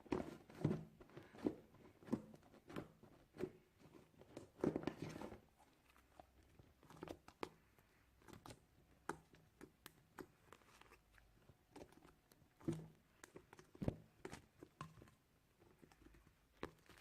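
Homemade slime being squeezed and pressed by hand, giving soft, irregular pops and squelches as trapped air escapes. The pops come thick in the first few seconds, thin out, then cluster again later.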